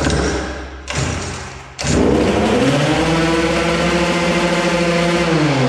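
Two-stroke 70cc Polini Evolution engine of a DM minibike being pull-started on choke: two pulls of the starter, then it catches about two seconds in and runs. Its note rises, holds steady at high revs, and drops in pitch near the end.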